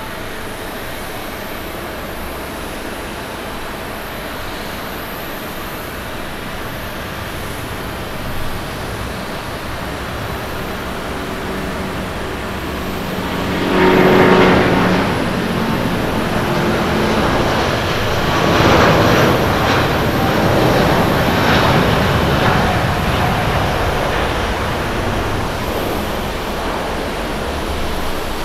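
All Nippon Airways Boeing 787-9 Dreamliner's Rolls-Royce Trent 1000 jet engines at takeoff power: a steady rumble that swells sharply about halfway in as the airliner runs past on its takeoff roll, then stays loud and uneven, surging several times as it lifts off.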